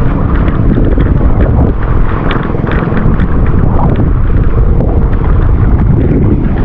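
Heavy wind buffeting the microphone over the steady running of a motorboat under way.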